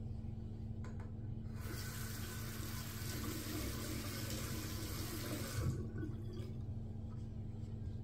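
Water running from a bathroom tap into a sink, turned on about one and a half seconds in and shut off about four seconds later.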